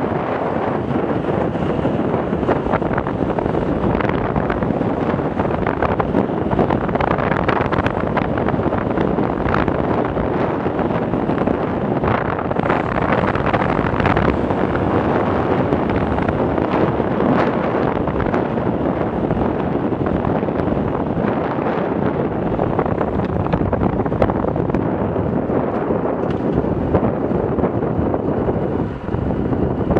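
Steady wind rush on the microphone of a Yamaha YBR 125 motorcycle riding along a road, with the bike's running noise mixed in. It dips briefly near the end.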